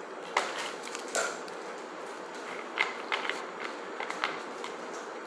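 Fork scraping and clicking against an aluminium foil takeaway tray as food is stirred and picked up, the thin foil crinkling under it. About eight short sharp clicks come irregularly, a few tight together around the middle, over a faint steady hiss.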